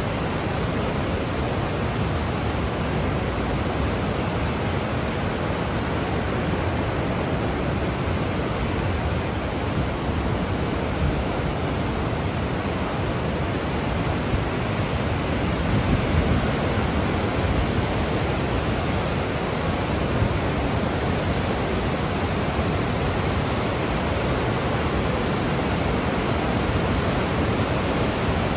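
Class 6 whitewater rapids of the Niagara River rushing steadily: a loud, even wash of churning water.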